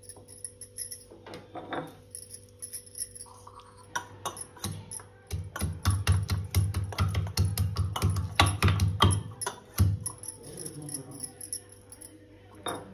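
Ginger pounded with a heavy pestle in a small steel tumbler: a quick run of dull thuds with metallic clinks and jingling, starting about four seconds in and stopping about ten seconds in. Lighter taps and clicks come before and after the pounding.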